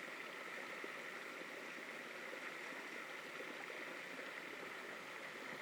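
Faint, steady sound of running water.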